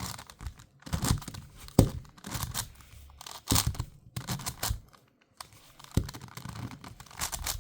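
Plastic 5x5 Rubik's cube being turned by hand: irregular clicking and clacking of its layers, in quick bursts with a brief pause a little past the middle.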